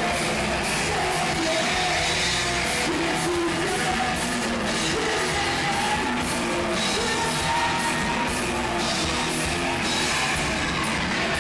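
Live alternative metal band playing: distorted guitar, bass and drums, with vocalists singing and shouting into microphones. The recording is poor and muddy.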